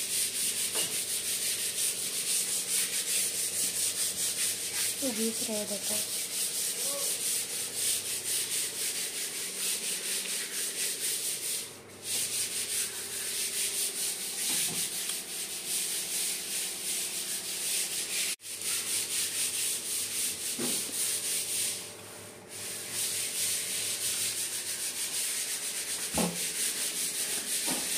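A painter's hand tool rubbing over a plastered wall during priming, in quick continuous strokes, with short breaks about 12 and 22 seconds in.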